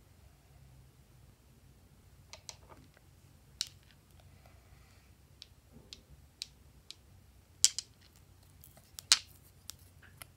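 Glass nail polish bottles and their caps clicking and tapping as they are handled, about a dozen short sharp clicks, the two loudest in the second half.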